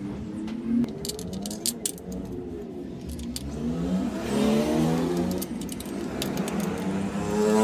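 Honda CB360's parallel-twin engine running and being revved several times, its pitch rising and falling, with light clicks and rattles over it.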